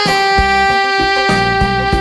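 Saxophone holding one long note over a backing band track with drums and bass.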